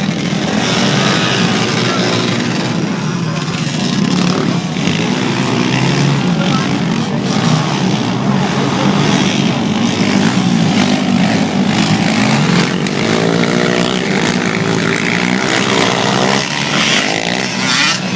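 A pack of racing ATVs' engines running hard together, their pitch rising and falling as riders throttle on and off around the track.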